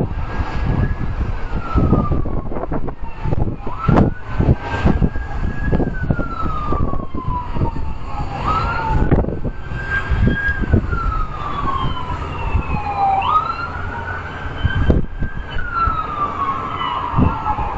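Emergency vehicle siren sounding a slow wail: its pitch rises quickly and falls slowly, about four times over. Underneath it is a low rumble with scattered sudden thumps.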